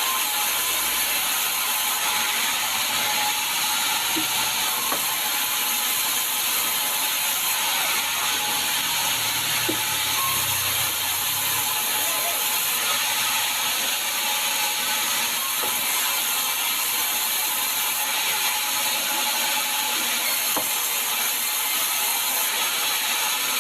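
Sawmill saw running steadily on sengon timber: a continuous, even, high-pitched mechanical noise with a few faint clicks.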